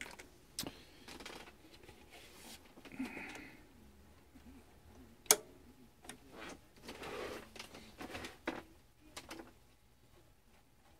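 Scattered small clicks and brief rustling of hands handling test leads and gear on a workbench, with one sharper click about five seconds in.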